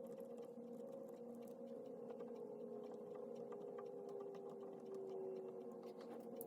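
Faint pen strokes on paper, small scratches and taps in an irregular run, over a steady low hum.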